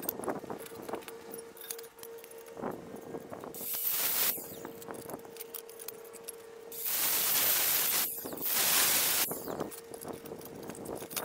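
Galvanized steel tubing being handled in a steel bench vise: scattered light metallic clinks and knocks, with three longer scraping rushes of about a second each as the tubing slides. A faint steady hum runs underneath.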